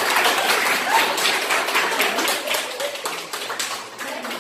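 A class of students applauding: many hands clapping quickly together, thinning out and fading near the end.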